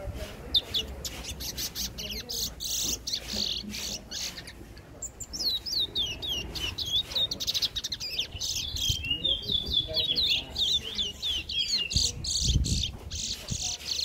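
Caged brown songbird singing: a fast run of varied high chirps and whistled notes, thickest in the middle of the stretch.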